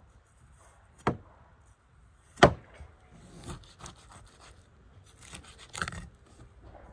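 A large knife trimming skin off a raw beef leg on a wooden cutting board: two sharp knocks on the board, about one and two and a half seconds in, then runs of short scraping cuts.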